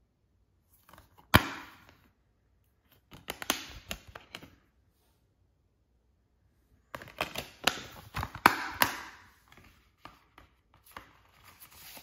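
Clear plastic Blu-ray case being handled, opened and closed: a sharp snap about a second in, then two bursts of plastic clicking, rattling and rubbing, and a few faint taps near the end.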